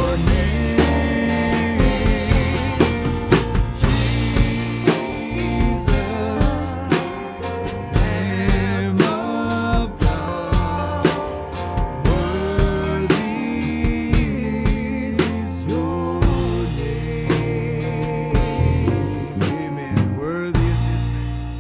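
Live worship band playing a song with a steady drum-kit beat under sustained instrument chords, dying away near the end.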